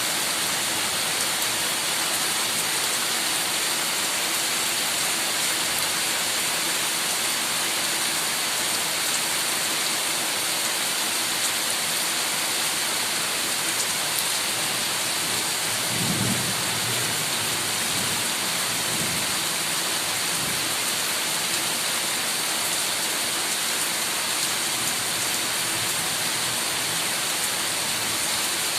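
Heavy rain falling steadily as a dense hiss. A low rumble of thunder rolls in about sixteen seconds in and fades over the next few seconds.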